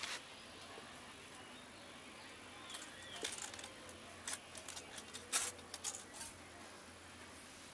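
Scattered light clicks and taps of a clear plastic plate being fitted down over the steel cylinder studs of a bare motorcycle engine block, in a cluster through the middle with the loudest tap a little past five seconds in.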